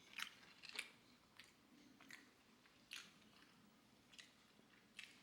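Faint chewing of fast-food French fries, with soft crunches and mouth clicks every half second or so.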